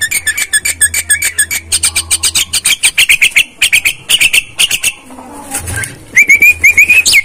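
A caged myna calling: a fast run of harsh, clicking chatter notes for several seconds, then, near the end, a quick series of short rising whistled notes.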